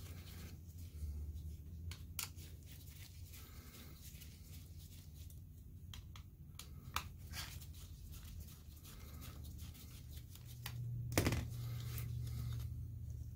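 Small clicks and scrapes of a screwdriver taking out the screws that hold a DLP projector's DMD board, then the board assembly being handled, with a louder knock near the end. A steady low hum runs underneath.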